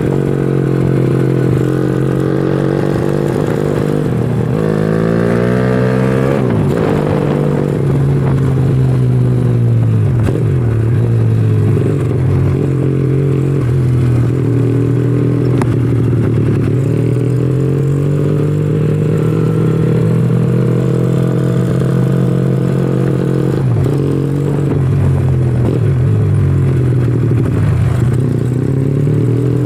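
Honda Astrea Legenda 2 single-cylinder four-stroke motorcycle engine being ridden, its pitch climbing and dropping again and again as it accelerates and shifts, with one steep climb about five seconds in. The carburettor now carries a 120 main jet and 42 pilot jet, which the builder judges still too rich at low revs: the pilot jet is too big.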